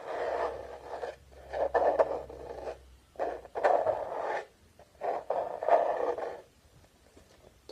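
Plastic Tupperware containers scraped and rubbed: four stretches of about a second each, with small clicks between, stopping about a second before the end.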